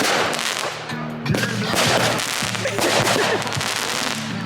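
Fireworks going off in dense, rapid crackling bangs, with a short lull about a second in.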